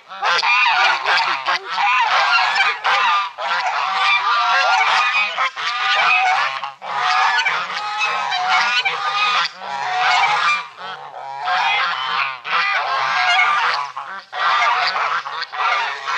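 A flock of domestic geese honking loudly, many calls overlapping almost without pause, as they are herded along, with a few brief lulls.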